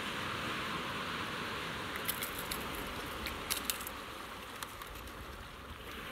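Sea water washing steadily, with a scattered run of sharp clicks and ticks in the middle.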